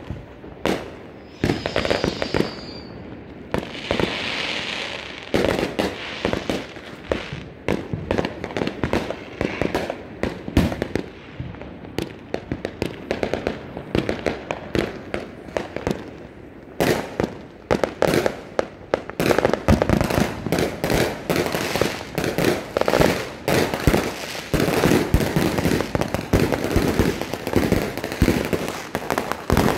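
Fireworks and firecrackers going off all around: a steady run of sharp bangs and pops, with a brief whistle about two seconds in, turning into dense, near-continuous crackling after about twenty seconds.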